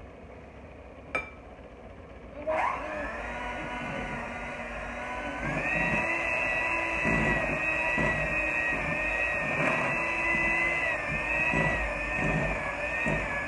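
Electric hand mixer switched on about two and a half seconds in, its motor whining up to speed, then stepping up to a faster, higher-pitched setting a few seconds later and running steadily as its beaters work through cookie dough.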